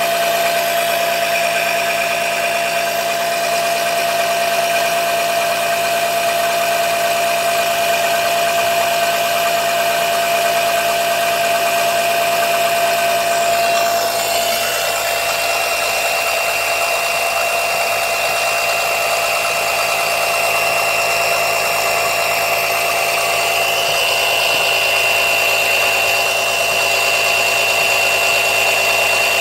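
Small motor-driven oil suction pump running continuously with a steady whine as it draws oil up the dipstick tube, pulling air rather than an even flow of oil. Its tone shifts about halfway through, when a higher whine comes in.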